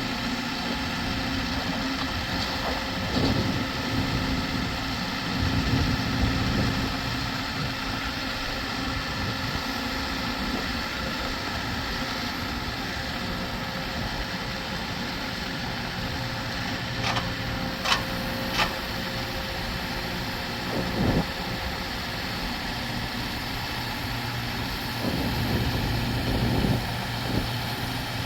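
HMC STR20 pile driver's engine running steadily at idle, with a few sharp clicks partway through.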